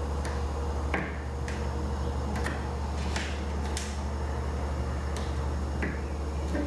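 Scattered short clicks and taps of hands handling the ABS plastic spoiler and its adhesive tape backing, about eight in all, over a steady low hum.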